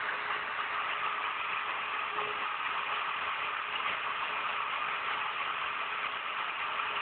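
CNC router spindle running steadily while carving a 3D relief into MDF, a constant high whirring noise with a faint steady hum underneath.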